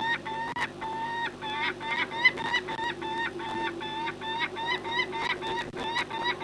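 Peregrine falcon calling in a fast, even series of short, clear notes, about three to four a second, over a steady low hum.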